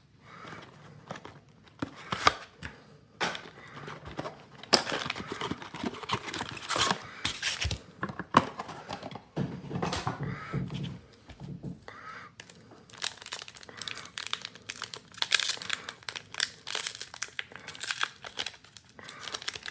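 Foil Pokémon booster pack wrapper being worked and torn open: irregular crinkling and crackling with bursts of tearing, the pack a little hard to open.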